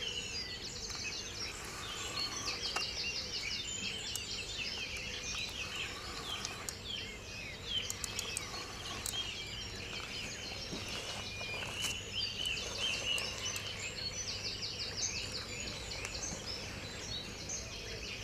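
Many songbirds singing at once in a dawn chorus, with short chirps and repeated fast trills overlapping throughout.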